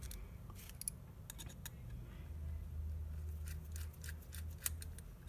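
Scattered small clicks and taps of a precision screwdriver and the plastic and metal parts of a corded Detailer hair trimmer being handled and screwed together during reassembly, with a faint low rumble of handling through the middle.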